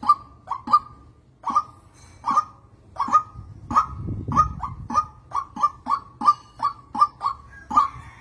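White-breasted waterhen calling: short, clipped calls repeated over and over, about two to three a second, coming closer together after the first few seconds.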